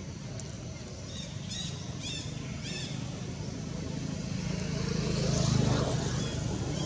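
The low hum of a passing engine, growing louder to a peak about five and a half seconds in, then easing off. Several short high chirps from a bird come about one to three seconds in.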